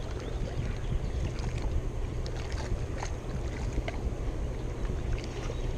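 Steady low rumble of wind buffeting the microphone over moving tailwater below a dam, with a few faint clicks.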